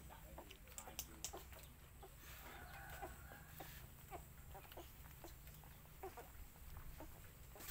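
Faint chicken clucking, short clucks scattered throughout, over a low steady hum.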